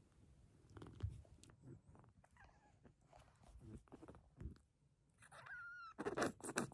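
Young Siamese-tabby kitten mewing: a faint high cry about two and a half seconds in, then a clearer, longer high-pitched mew that bends downward near the end, over soft rustling on a fleece blanket. Several loud bumps of handling come right after the mew.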